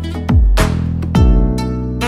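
Background music, with sustained pitched notes over deep bass hits.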